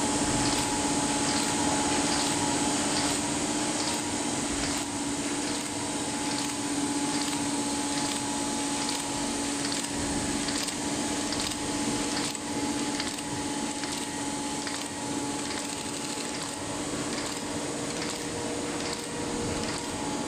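Automatic paper folding machine running: a steady hum and airy hiss from its motors, air pump and rollers, with light regular ticking about twice a second as it cycles.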